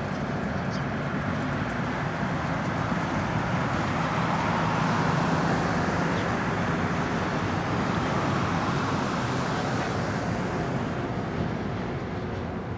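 EMD F7A diesel locomotive with its 16-cylinder EMD 567 engine running steadily as it hauls a passenger train past, the rumble swelling to a peak about five seconds in and then easing slightly.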